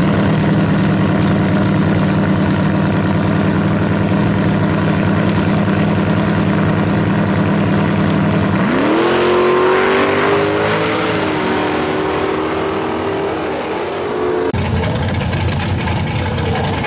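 Drag-race Chevrolet Camaro engine held at steady revs on the starting line, then launching about eight or nine seconds in: the engine pitch climbs sharply and stays high as the car pulls away. Near the end, a different drag car's engine runs at lower revs.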